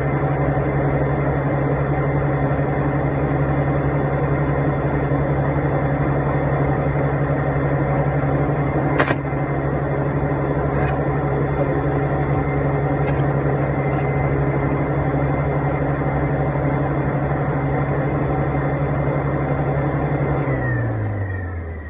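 A motor running with a steady low hum, with a few sharp clicks partway through. Near the end it winds down and stops, its pitch falling.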